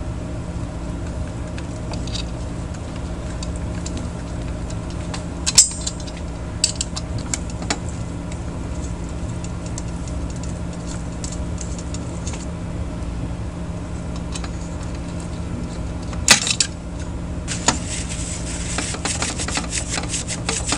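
Small metal clicks and knocks from a screwdriver and aluminium heat sinks being handled on an amplifier chassis, with a louder knock about five seconds in and another near the end. After that comes a quick run of small scraping clicks as the screwdriver works the mounting screws. A steady low hum sits underneath.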